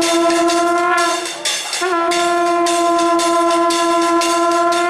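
A horn-like wind instrument holds one long, steady note, breaks off for about half a second a little over a second in, and then takes the note up again. Rapid metallic ringing of temple bells runs under it, accompanying a lamp offering (arati).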